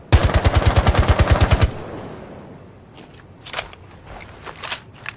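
9mm C1 submachine gun firing one burst on full automatic, a rapid even string of shots lasting about a second and a half, with the echo trailing off after it. A few faint clicks follow near the end.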